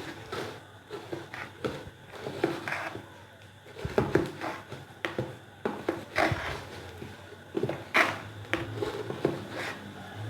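Irregular taps and knocks of a spoon against a bowl as thick paniyaram batter is stirred, with a few louder knocks along the way.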